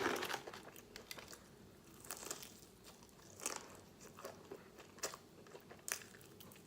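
Close-up chewing and biting of crispy fried chicken: irregular crisp crunches and mouth clicks, loudest right at the start.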